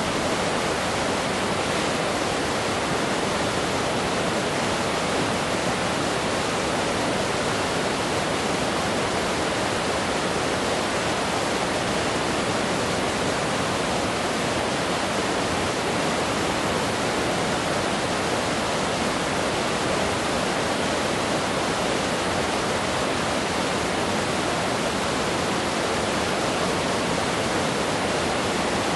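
Fast-flowing river rushing over rocks, a steady, unbroken roar of water.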